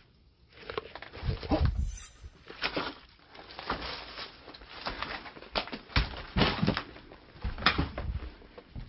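Footsteps crunching and clattering over broken wooden boards and dry leaves, an irregular series of knocks and creaks, loudest about two seconds in and twice more near the end.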